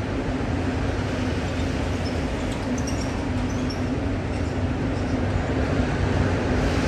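BNSF freight train of autorack cars rolling past with a steady rumble, and a few faint high squeaks about two to three seconds in.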